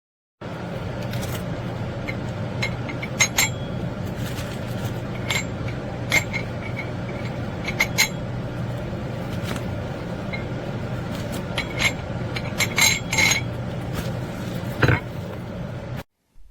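Metal dumbbell weight plates and handle clinking and scraping against each other as they are handled, a dozen or so sharp clinks over a steady low hum. The sound starts suddenly and cuts off near the end.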